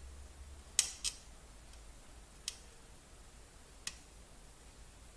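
Light, sharp clicks of a soldering iron's metal tip against the connector pins while desoldering the keyboard connector of a ZX81 circuit board: a close pair about a second in, then two single clicks spaced about a second and a half apart.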